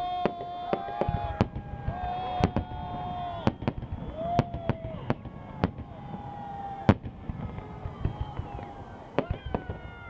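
Fireworks shells bursting overhead in a rapid string of sharp bangs, the loudest about seven seconds in, over people's voices calling out in long held shouts.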